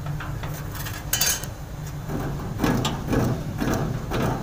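Irregular sharp knocks and clinks, a cluster about a second in and then several more about every half second, over a steady low hum.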